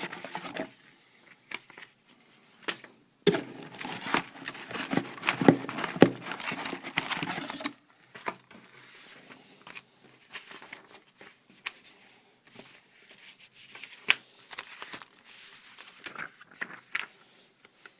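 Packaging being handled and crinkling, with scattered clicks and rustles and a longer, louder stretch of continuous crinkling from about three to eight seconds in.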